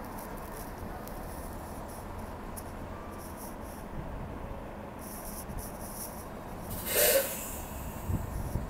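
City transit bus idling at a stop with a steady low rumble. About seven seconds in there is a short, loud burst of air hiss from the bus's pneumatics.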